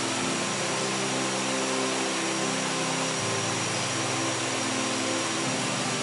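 Steady rush of a small waterfall pouring into a pool, with a few low held tones underneath that change pitch every second or two.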